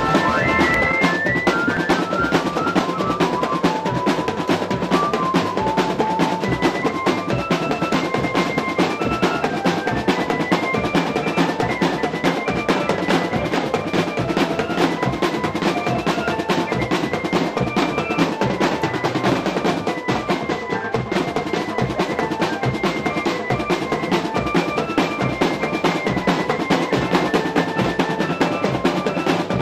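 Marching drum band playing: snare drums and bass drums struck together in dense, steady drumming, with a high melody of short stepped notes running over the drums.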